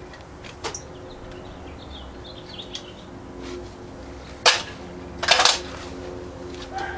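A few sharp metal clanks and clinks of tools and parts being handled on a Willys 4-134 engine, the loudest about halfway through followed by a short rattling cluster. Faint bird chirps in the background.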